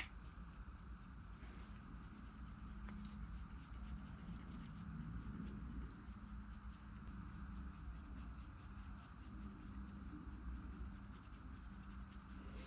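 Paintbrush dabbing and stroking fabric paint onto a soft PU foam figure: many faint light ticks and scratches over a steady low room hum.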